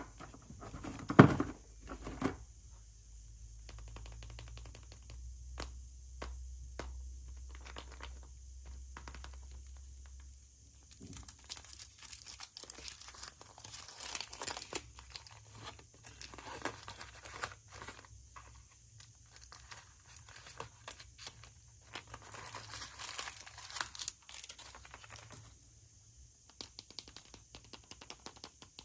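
Wrapping or packaging being torn and crumpled by hand, in irregular bursts of crinkling with scattered clicks. A sharp knock comes about a second in.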